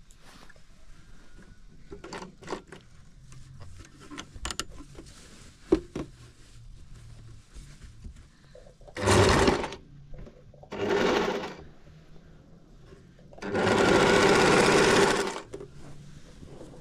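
Kachiran electric household sewing machine stitching fabric in three runs: two short bursts about nine and eleven seconds in, then a longer run of about two seconds. Before them come a few light clicks and knocks.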